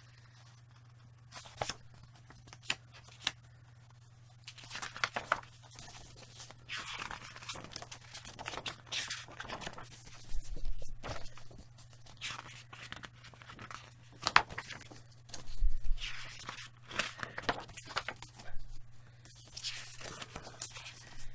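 Paper handling: the pages of a printed programme booklet turned and leafed through, with rustles and sharp clicks of paper, busier after the first few seconds.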